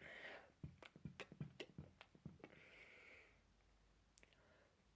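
Near silence with a string of faint mouth clicks and a soft breath in the middle.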